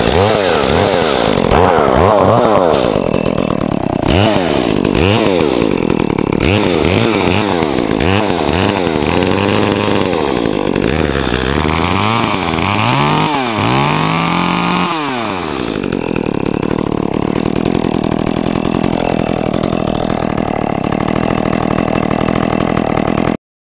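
Echo 33cc two-stroke chainsaw running, revved up and down repeatedly, then held at a steady speed for the last several seconds before cutting off suddenly near the end.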